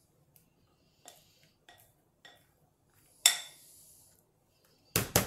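Plastic spatula scraping and tapping against a glass mixing bowl as leftover whipped cream is cleared out. There are a few light scrapes, one sharp ringing knock a bit past the middle, and a quick run of loud knocks near the end.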